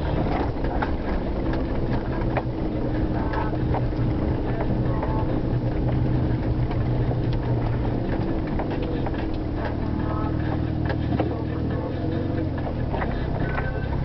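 Vehicle engine running steadily at low speed, heard from inside the cabin while driving slowly over a rough gravel track, with frequent small knocks and rattles.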